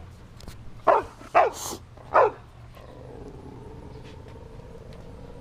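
A dog barking three times, each bark short and falling in pitch, followed by a steady high tone held for the last couple of seconds.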